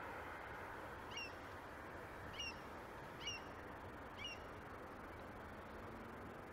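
Four short, high-pitched calls from an animal, about a second apart, over a steady background hiss.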